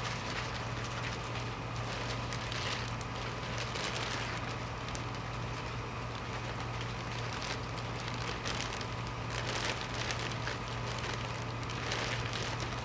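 Irregular rustling and crackling of a folding cot's fabric being handled and packed, over a steady low hum.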